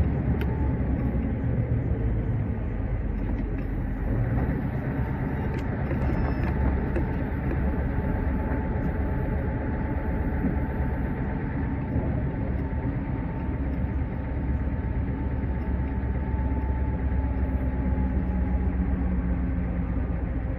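Scania S580 truck's V8 diesel running steadily under way, heard from inside the cab with road noise.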